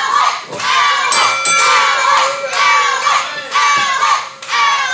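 Small crowd with high children's voices shouting a repeated chant, about two shouts a second.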